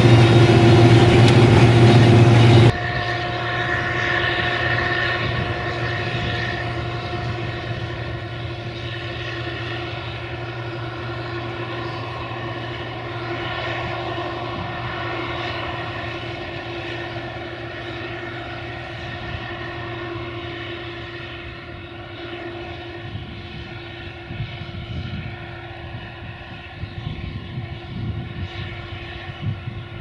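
Case IH 2166 Axial-Flow combine running while harvesting corn. For about three seconds it is loud, then it drops abruptly to a quieter, steady hum with several held tones that slowly fades.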